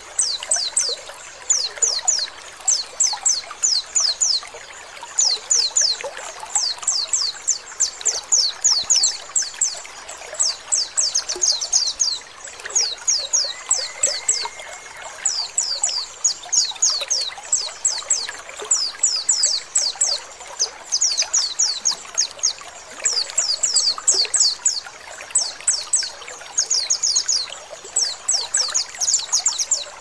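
White-eye (pleci) in ngecal song: quick runs of very high, rapid descending chirps, repeated in bursts throughout. Under it runs a steady trickle of flowing water.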